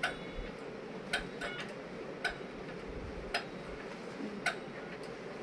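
Sharp, short clicks repeating at a steady pace, about one a second, over a faint steady hum.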